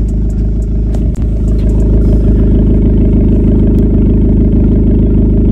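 Maruti Suzuki Swift engine idling steadily, heard up close at the tailpipe of its aftermarket valvetronic exhaust.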